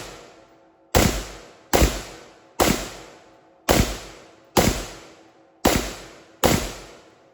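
A 10.5-inch AR-15 in 5.56 with an SN-ACH G2 muzzle device, firing M855 rounds in semi-auto at a steady pace of about one shot a second: seven sharp shots, each trailing off in a short echo.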